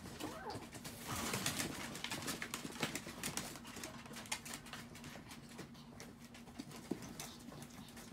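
Two Chihuahuas play-wrestling, with soft throaty grumbles and a scatter of claw clicks and scuffles on the tarp-covered floor.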